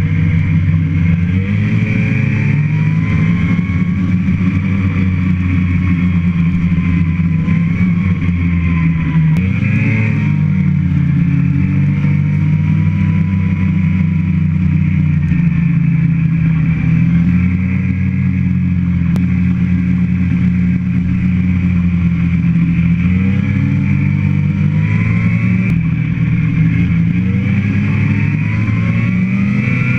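A motor vehicle's engine running under way, its pitch rising and falling a little as the speed changes, with a short surge about ten seconds in.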